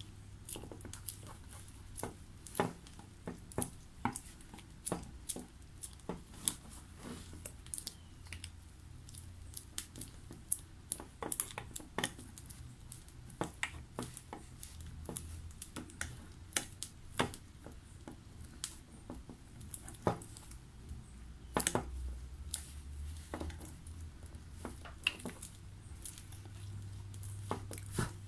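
Light, irregular clicks and taps of small dental waxing instruments at work during the wax-up of a bruxism splint, over a low steady hum.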